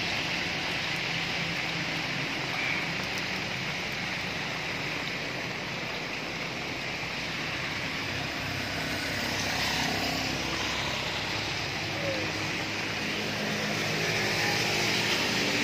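Steady hiss of rain and traffic on a wet road, with vehicle engines passing now and then.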